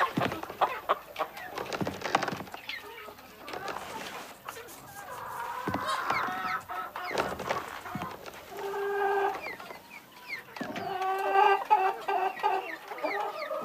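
Chicken clucking, with repeated short calls that come in several bouts through the second half, after some sharp clicks and scuffles at the start.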